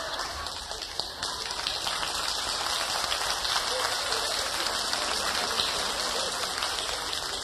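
Audience applauding: a dense, steady patter of many hands clapping that holds an even level.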